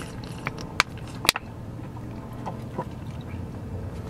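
A person drinking from a small plastic drink bottle in a truck cab, with two sharp plastic clicks about a second in and fainter ticks after. A low steady hum runs underneath.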